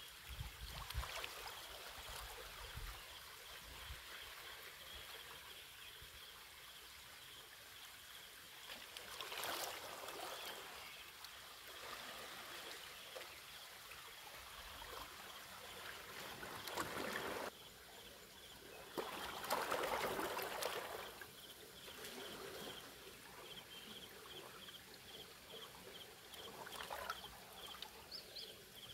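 Small waves lapping and trickling among shoreline rocks. Two louder washes of water come about ten and twenty seconds in.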